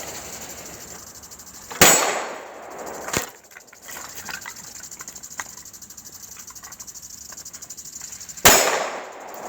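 Glock 17 9mm pistol shots: two loud cracks, about two seconds and eight and a half seconds in, and a fainter sharp crack about three seconds in, each with a short echoing tail. Between them runs a steady hiss of lawn sprinklers spraying water.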